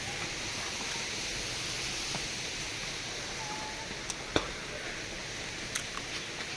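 Steady hissing outdoor background noise, with a few sharp clicks about four seconds in and again near the end.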